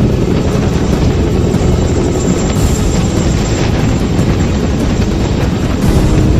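Boeing CH-47 Chinook helicopter running: its tandem rotors give a loud, steady chop over the whine of its turbines.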